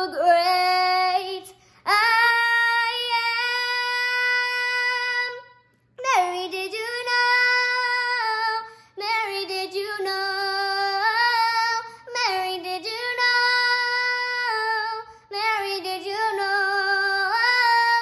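A ten-year-old girl singing solo, in slow phrases of long held notes with short breaths between them.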